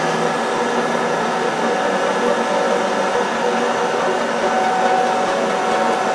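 Propane torch burning with a steady hiss, its flame blowing into a small homemade firebrick forge.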